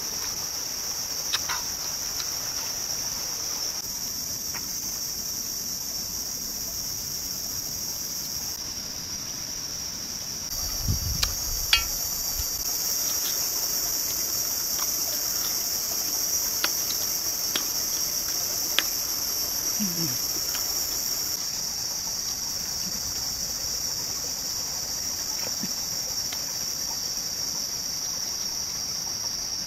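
A steady, high-pitched chorus of insects droning throughout, with a few faint clicks scattered through it and a brief dull knock about eleven seconds in.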